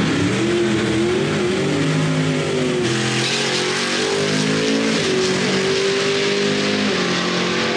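Muscle-car engines racing down a drag strip, revving hard with the pitch rising and falling as they accelerate, and the engine note changing about three seconds in.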